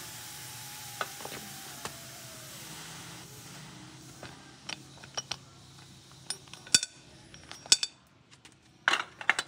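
Steam hissing out of a clamp-lid pressure cooker as its screw clamp is loosened, fading away over the first few seconds. Then light metal clicks and several sharp clanks as the clamp bar is worked free and lifted off the metal lid.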